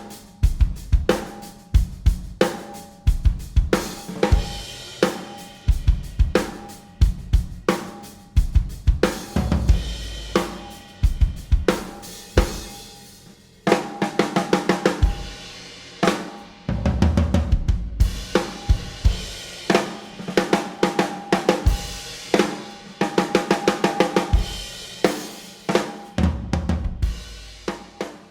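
Oriollo Phantom 65 snare drum, tuned low with a coated Ambassador batter head, played in a drum-kit groove with bass drum, hi-hat and cymbals. The groove includes quick runs of snare strokes.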